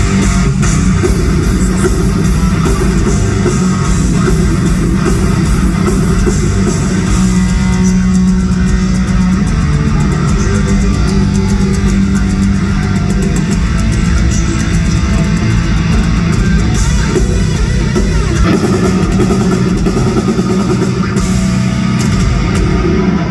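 Live heavy metal band playing loud and steady: distorted electric guitars, bass guitar and a drum kit, heard from within the crowd.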